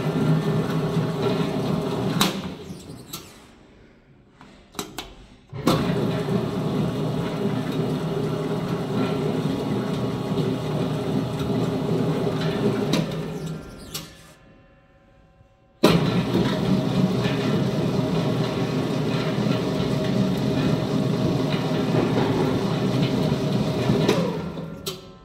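Estella 348SM40 spiral dough mixer running empty, its motor and spiral hook turning with a steady hum. It is stopped and winds down three times: about 2 s in, around 13 s, and near the end. After the first two stops it starts again abruptly, about 5.5 s and 16 s in.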